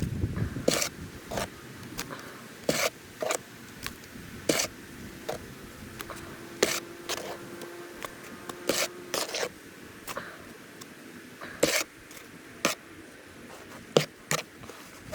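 Short, sharp scrapes and knocks of a tool in a mixing pan, about a dozen at irregular intervals, as wet mortar-and-grout mix is scooped into a grout bag.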